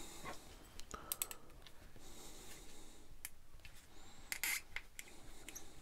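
Scattered light clicks and taps of a metal lamp holder and a small screwdriver being handled on a tabletop, with a brief clatter about four and a half seconds in.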